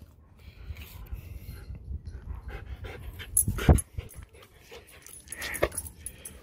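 Siberian husky panting, with a short, loud thump about three and a half seconds in.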